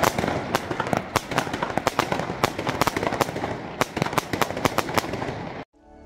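Fireworks going off: a rapid, irregular string of sharp bangs and crackles that cuts off suddenly near the end.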